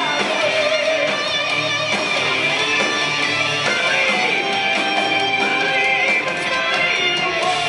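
Live hard rock band playing, with electric guitars to the fore over bass and drums, and a melody line that bends up and down in pitch.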